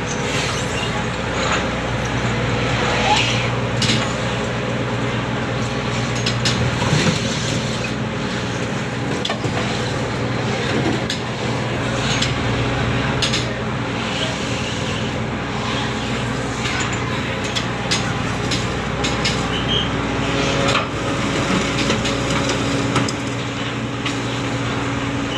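Steady drone of ship's machinery, with irregular knocks and clatters throughout.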